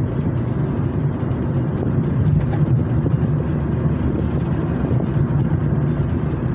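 Road and engine noise inside the cabin of a moving Kia Rio: a steady low rumble.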